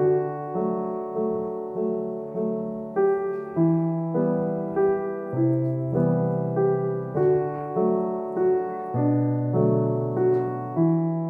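Background piano music: a melody of single notes struck at an even, unhurried pace, each note dying away before the next.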